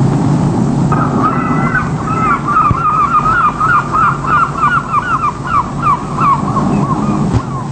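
A bird calling in a fast run of harsh squawks, about three or four a second, starting about a second in and stopping near the end, over a steady low rumble.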